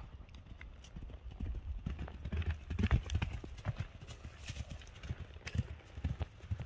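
Hoofbeats of a Tennessee Walking Horse mare moving across grassy ground under a rider: a run of dull, uneven thuds, loudest about three seconds in.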